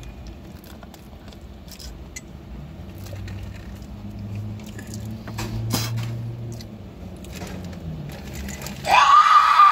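Faint clicks and handling noises. About nine seconds in, a loud, high-pitched cry rises sharply, holds for under a second and cuts off suddenly.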